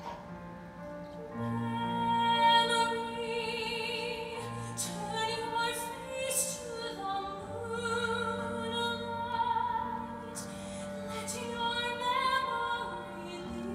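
A woman singing a slow, tender musical-theatre ballad with vibrato, accompanied live by a theatre orchestra holding sustained low notes, as heard from the audience.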